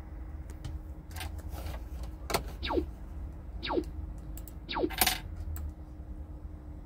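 Kitten eating wet cat food from a small plastic bowl: wet chewing and licking with small clicks. Four quick squeaky chirps that fall from high to low pitch come between about two and five seconds in, over a faint steady hum.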